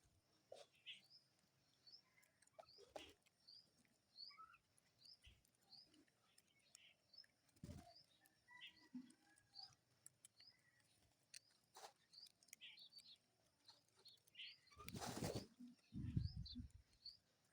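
Faint chirping of a small bird, short high notes repeated steadily about every two-thirds of a second. About fifteen seconds in comes a brief rush of noise, then a low rumble.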